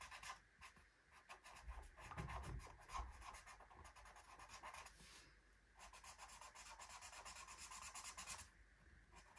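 Faint, fast scratching of a felt-tip marker colouring on paper in quick strokes, pausing briefly twice.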